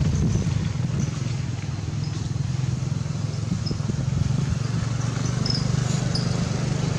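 A steady low engine drone, with faint short high chirps scattered over it.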